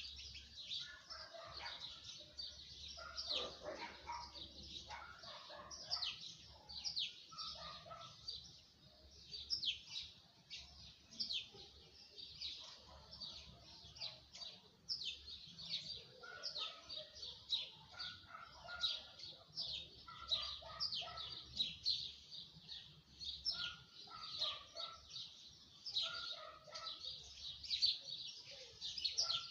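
Many small birds chirping without pause: a dense chorus of quick, high, downward-sliding chirps, with lower calls mixed in now and then.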